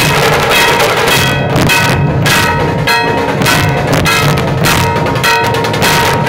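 Dhol-tasha troupe drumming: big dhol barrel drums beat a steady rhythm while a large hanging metal gong is struck again and again, its ringing tones carrying over the beats.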